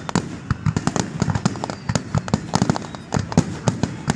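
Fireworks display: a dense, irregular string of sharp bangs and crackles, several a second, over a steady low rumble.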